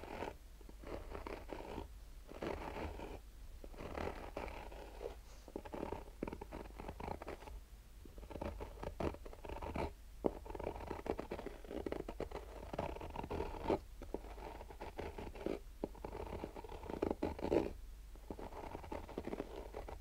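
Fingernails slowly scratching the textured fabric surface of a sunglasses case, in repeated rough strokes with short pauses between them.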